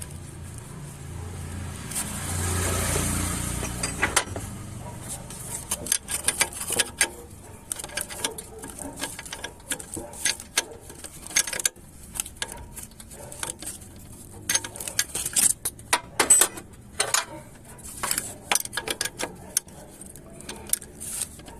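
Hand tools working on a car alternator: irregular metallic clicks and knocks of a wrench and ratchet as the positive-terminal nut is fitted and tightened. A brief rush of noise swells and fades about two seconds in.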